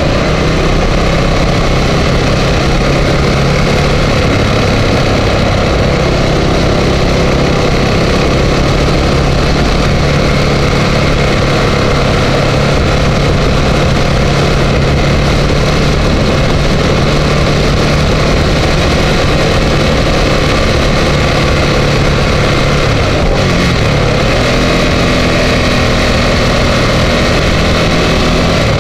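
Ducati Multistrada 1200's V-twin engine running steadily on the move, mixed with wind rush. The engine note shifts about five seconds before the end.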